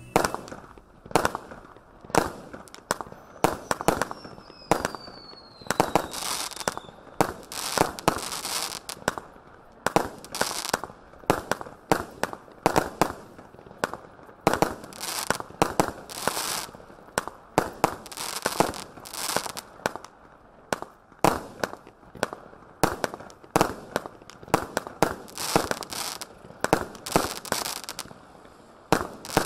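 Category 3 consumer firework cake (Phantom 210-shot barrage) firing shot after shot, about two a second, each a sharp report. A falling whistle sounds a few seconds in.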